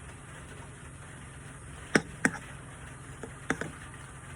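A feeding spoon clinking against a bowl: three sharp taps, two close together about two seconds in and one more about a second later.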